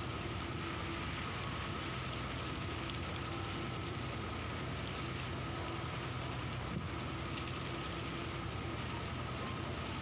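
A boat engine running at a steady speed: a constant, even drone with a steady hiss beneath it.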